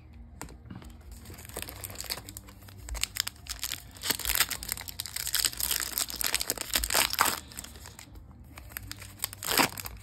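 The foil wrapper of a Topps baseball card pack crinkles and crackles as it is torn open by hand. The crinkling is densest about halfway through, and there is one sharper rip near the end.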